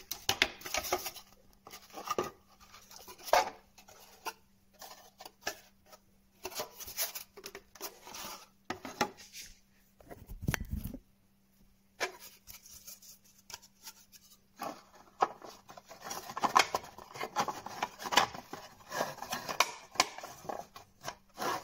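Parts of a drink-can holder being handled and fitted together: scattered light clicks, taps and rubbing, with pauses, and busier toward the end.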